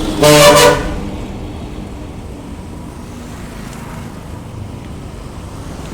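A short, loud vehicle horn blast lasting about half a second, just after the start, followed by steady traffic and engine rumble.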